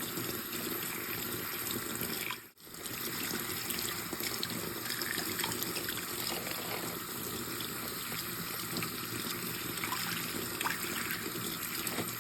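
Hot oil sizzling in a skillet: a steady hiss with faint crackles, broken briefly about two and a half seconds in.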